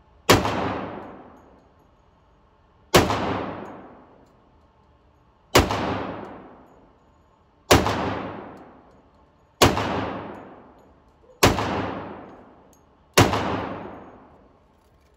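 Seven pistol shots fired one at a time, about two seconds apart and slightly quickening toward the end. Each shot rings out in a long echo that fades over about a second and a half in the enclosed concrete range.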